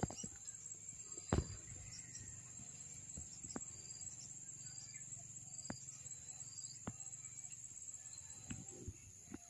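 Steady high-pitched drone of insects, with a few sharp clicks and snaps scattered through it, the loudest about a second in.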